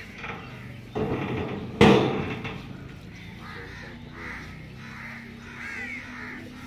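Crows cawing repeatedly, with one sudden loud thump about two seconds in.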